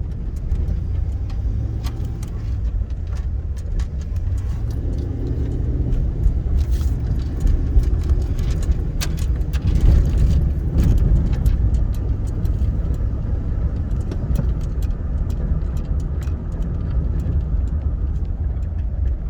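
Chevy Silverado pickup heard from inside the cab: a steady low rumble of engine and road noise, swelling slightly midway, with a few faint clicks and rattles.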